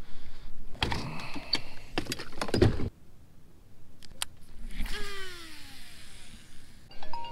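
Knocks and scuffing of rod handling, then a baitcasting reel's spool whining as line pays out on a cast, the whine falling in pitch for about a second as the spool slows.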